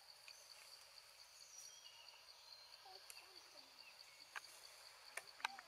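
Faint forest ambience: a steady high-pitched insect trill, with a few short falling calls about three seconds in and several sharp clicks near the end.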